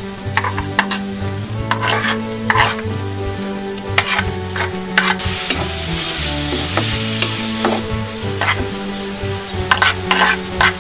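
Vegetables sizzling and frying in a hot metal wok while a metal spoon stirs and scrapes through them, with repeated sharp clinks of spoon on pan. The sizzle swells for a couple of seconds midway as the food is turned.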